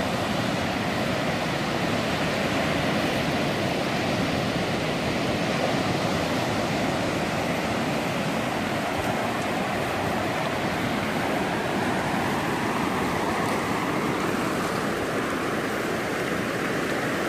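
Ocean surf breaking and washing up a sandy beach: a steady rush of waves with no let-up.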